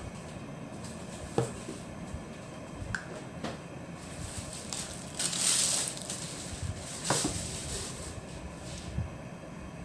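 Kitchen handling noises while measuring out sour cream: a few light knocks and clicks of a spoon, a measuring cup and a plastic tub. About five seconds in there is a louder rustling scrape lasting under a second.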